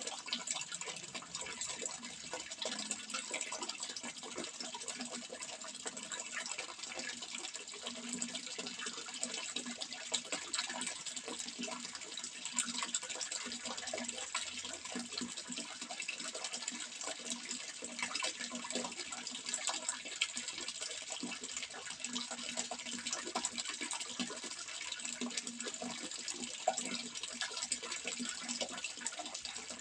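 Running water splashing steadily, a continuous rush flecked with many small splashes.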